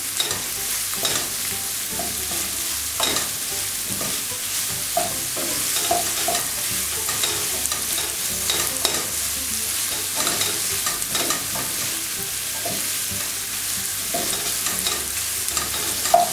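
Diced poultry breast and onion frying in a nonstick pan: a steady high sizzle, with frequent short scrapes and taps as a spatula stirs the pieces against the pan.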